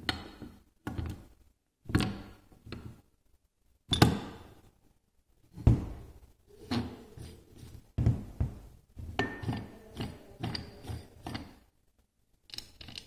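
An aluminium oil pump housing being handled, turned over and set down on a workbench: a run of irregular knocks and thunks, the loudest about four and six seconds in.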